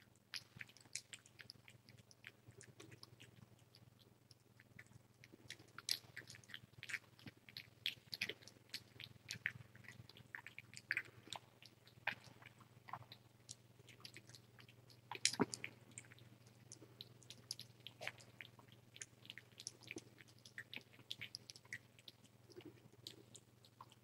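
Tiny kitten suckling from a feeding bottle: faint wet smacking and clicking of its mouth on the rubber nipple, several irregular clicks a second, the loudest about fifteen seconds in, over a steady low hum.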